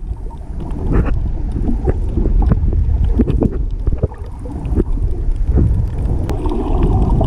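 Muffled underwater rumble of moving water picked up by a camera below the surface, with scattered clicks and knocks throughout.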